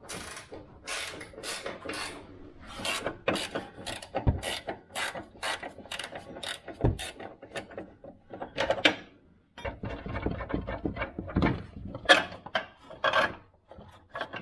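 A ring spanner undoing a front upper control arm bolt: a long run of sharp metallic clicks and clinks, a few each second and unevenly spaced, with a duller scuffing rumble for a couple of seconds past the middle.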